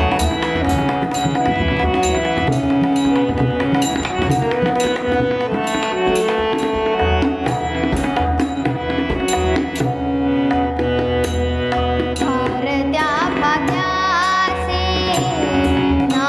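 Harmonium and tabla playing an abhang melody, the harmonium holding steady reed tones over regular tabla strokes. A girl's singing voice joins about twelve seconds in.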